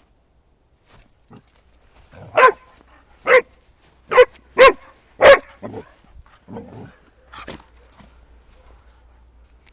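A young Shar Pei barking in play: five loud, sharp barks in about three seconds, then a few quieter ones.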